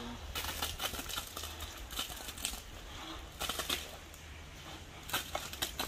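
Wet concrete tipped from a bucket into a foundation trench, sliding out and splattering in about four short noisy bursts, with a steady low hum underneath.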